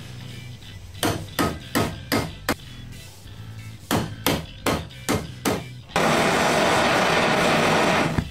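Hammer blows on a thick, heated piece of steel bar being bent into a curve: two runs of about six sharp strikes each, about three a second. Near the end a loud steady rushing hiss takes over for about two seconds.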